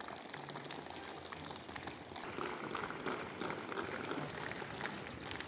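Faint open-air background of a crowded school field: a steady hiss with many small crackling ticks and distant, indistinct voices that come up a little in the second half.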